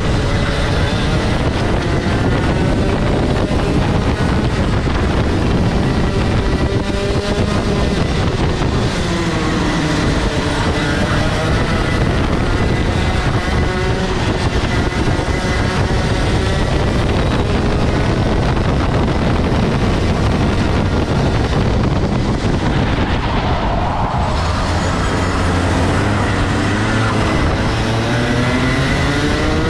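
Rotax Max Senior 125 cc two-stroke kart engine running hard through a lap, heard close up from the driver's helmet. Its pitch rises and falls again and again as it revs out and drops off for corners, with a deep drop near the end followed by a long climb back up.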